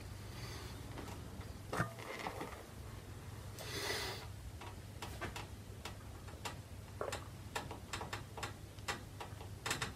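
Irregular light clicks and small metallic ticks from a long screwdriver working at seized, worn Phillips-head screws. A brief hiss rises about four seconds in, and a low steady hum runs underneath.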